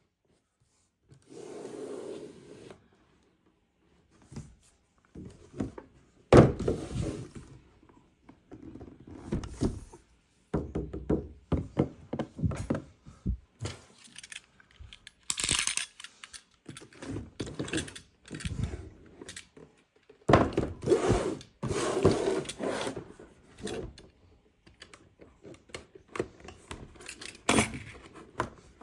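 A boxed 1:18 die-cast model car being handled and unpacked: irregular thunks, knocks and scrapes with short rustling bursts of packaging.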